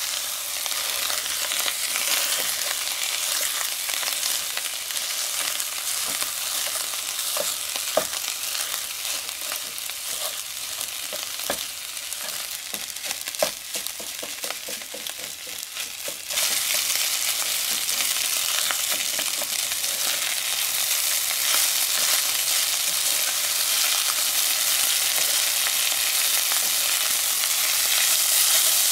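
Rice, beef and egg sizzling in a nonstick frying pan as a spatula breaks up and stir-fries the rice, with scattered taps and scrapes of the spatula against the pan. The sizzle jumps suddenly louder a little over halfway through.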